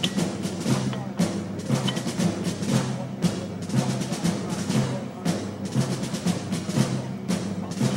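Film score music: a steady drum and percussion beat over a repeating low bass line.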